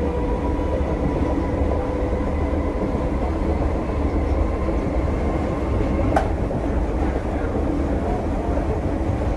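British Rail Class 313 electric multiple unit heard from inside the passenger saloon while running: a steady rumble of wheels and running gear with faint steady whining tones over it. There is one sharp click about six seconds in.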